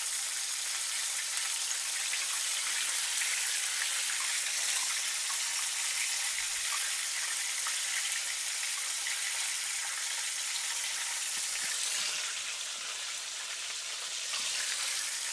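Chicken thigh pieces in a potato-starch and flour coating deep-frying in hot oil: a steady dense sizzle full of small crackling pops. This is the second fry, which drives moisture out of the meat. It eases slightly about twelve seconds in and picks up again near the end.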